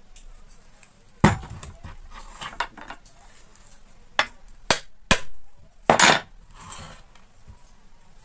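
Metal knocks as a burnt-out cooler fan motor is knocked apart with a hammer: a sharp knock about a second in, then three clanks between four and five seconds in and a longer metallic clatter around six seconds.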